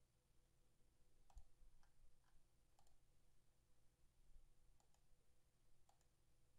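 Near silence broken by a handful of faint, sharp computer-mouse clicks, spaced irregularly.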